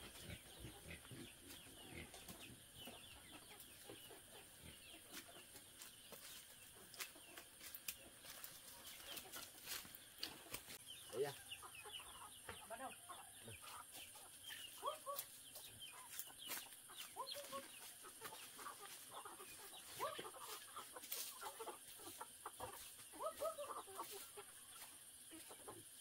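Chickens clucking faintly in short, scattered calls, growing more frequent in the second half, over a steady high hiss.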